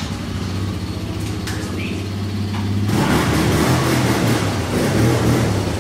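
Small youth ATV engine running, idling steadily at first, then revved up harder and louder from about three seconds in.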